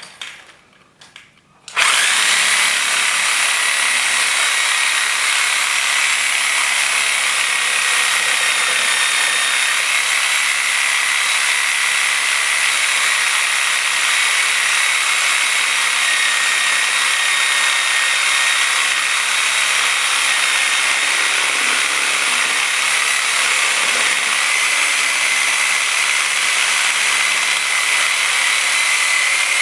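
DeWalt DW303M corded reciprocating saw with a Milwaukee Sawzall blade cutting into a frozen turkey. It starts about two seconds in and then runs steadily with a high whine.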